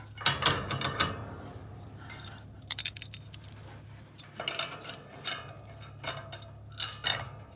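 Metal clinking and rattling as a steel threaded rod is pushed through the hole in a steel-tube pry bar, in several short spells of clinks, the loudest about three seconds in and another near the end.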